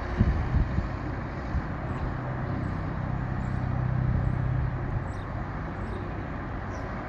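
A motor vehicle's engine hum swells to its loudest about four seconds in and fades again, as of a vehicle passing close by. Wind buffets the microphone in low thumps near the start.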